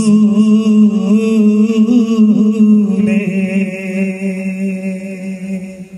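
Singing voices holding one long note of a Malayalam song, with a slight waver and no drumming; the note fades away near the end.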